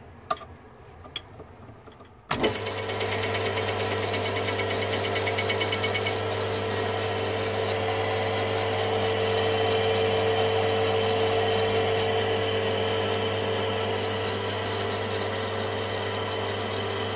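Metal lathe switched on about two seconds in and running steadily, spinning a new motorcycle clutch friction disc on a mandrel to check it for wobble. A fast, even ticking rides on the motor hum for the first few seconds after start-up.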